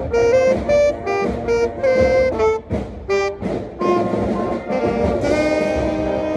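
Saxophone playing a run of short, detached notes, then from about five seconds in several wind instruments sustaining held chords together.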